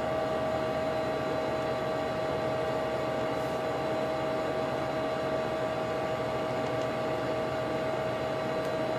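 Steady whirring hum with a constant, fairly high tone running through it, from the cooling fans on a homemade LCD projector; the fans are there to cool the LCD panel, which gets really hot under the lamp.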